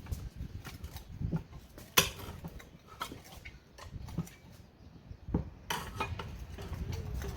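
Metal tools working an ATV tire bead off its rim on a manual tire changer: irregular clanks and knocks of the duckbill bar and pry bar against the steel changer and rim, the sharpest about two seconds in and a cluster of them near the end, over low rumbling.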